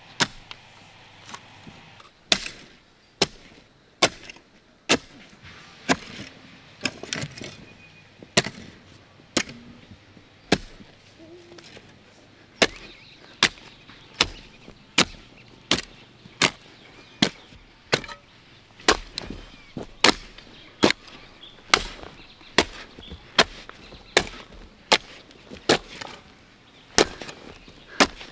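Steady chopping into wood, one sharp blow roughly every second, kept up at an even pace.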